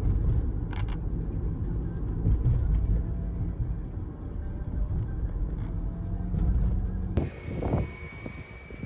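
Low, steady rumble of a car driving; it cuts off abruptly about seven seconds in.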